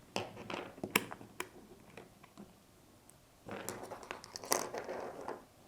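Small parts of an SSR9 airsoft rifle being handled as the dust cover's rod is pulled out and the cover and its spring come off: a few sharp little clicks in the first second or so, then after a pause a stretch of soft scraping and rustling.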